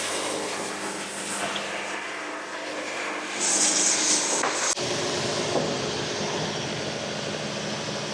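Band sawmill running through a log: a steady engine drone with the band cutting, a louder hiss for about a second in the middle, and an abrupt change in the sound just under five seconds in.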